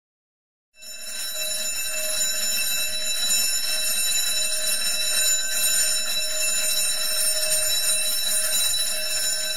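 A steady ringing drone of several held high tones over a faint hiss, fading in about a second in and dipping just before the end.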